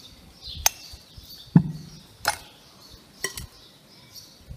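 A metal spoon clinking against a glass mixing bowl as a vegetable salad is tossed: four sharp clinks about a second apart. The second and loudest leaves a short low ring from the bowl.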